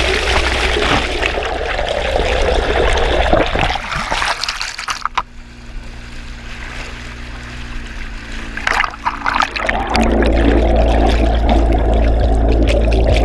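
Propeller wash behind a running Evinrude E-TEC two-stroke outboard, a rush of churning water heard through a submerged camera housing. It goes quieter for a few seconds in the middle, with a steady engine hum and a few sharp splashing clicks as the housing breaks the surface. About ten seconds in it turns back to a loud, deep, steady rumble once the housing is underwater again.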